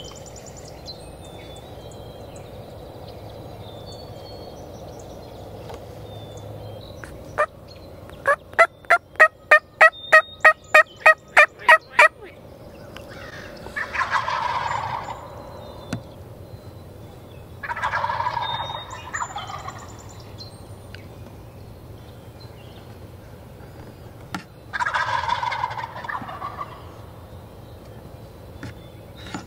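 Wild turkeys calling. A quick run of about a dozen yelps, about three a second, comes a third of the way in. Gobblers then gobble three times, each gobble a rattling call of a second or so.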